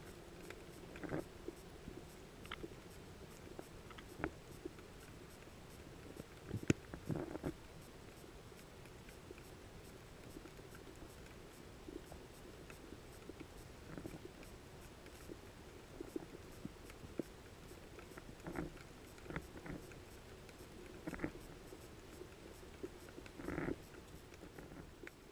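Underwater ambience picked up through a camera housing on the seabed: a faint steady hum with scattered short clicks and pops, a few of them in quick clusters.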